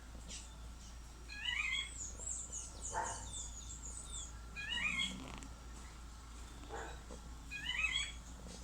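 A chicken making repeated short, squeaky cough- or sneeze-like sounds every few seconds; its owner cannot tell whether it is a cough or a sneeze.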